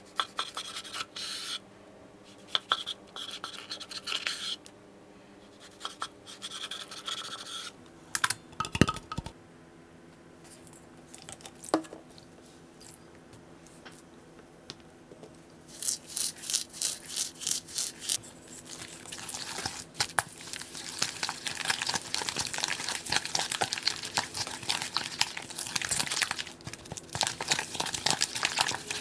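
A kitchen knife cutting raw pork belly on a wooden cutting board, in separate strokes. From about halfway through, a metal spoon mixes thick gochujang seasoning paste in a stainless steel bowl with rapid, continuous scraping and clicking.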